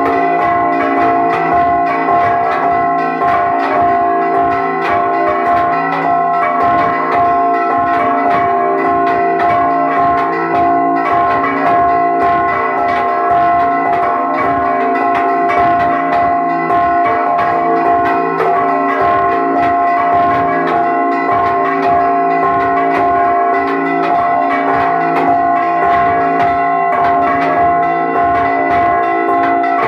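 Several church bells rung in a fast, continuous repique, struck in rapid succession by clappers pulled on hand ropes, their tones ringing on over one another. Loud and close, heard from right beneath the bells.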